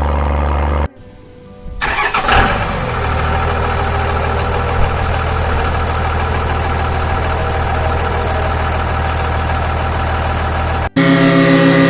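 Tractor engine sounds in spliced clips: after a cut about a second in, an engine starts up around two seconds in and settles into steady running. Near the end a sudden cut switches to a louder engine clip.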